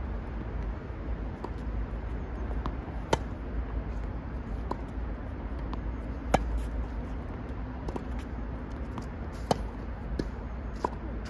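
Tennis rally on a hard court: three loud racket-on-ball strikes roughly three seconds apart, with fainter ball bounces and distant return hits between them, over a steady low rumble.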